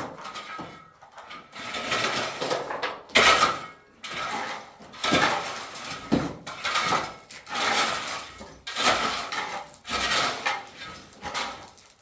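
Repeated metallic clinks and scrapes, about one a second.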